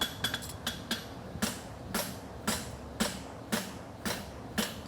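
Forging hammer striking hot steel horseshoe stock on an anvil: about two blows a second, each with a short metallic ring, plus a few quick light taps near the start. The farrier is flattening the hourglass-shaped valley out of the centre of the bar.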